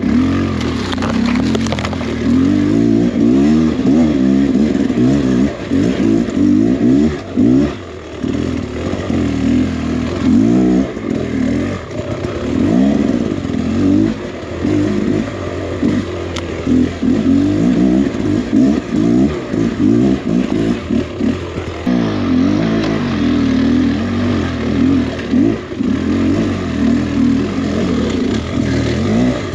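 A 300 cc two-stroke enduro dirt bike engine being ridden over rough trail, its revs rising and falling again and again as the throttle is blipped and rolled on and off.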